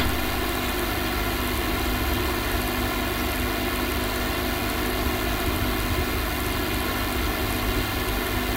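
Steady background hiss and electrical hum with a low rumble underneath, unchanging throughout.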